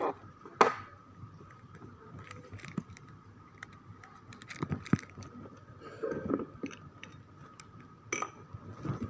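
Irregular clinks, knocks and scrapes of containers and plastic bags being handled while jamu is prepared, the sharpest knock about half a second in, over a faint steady high hum.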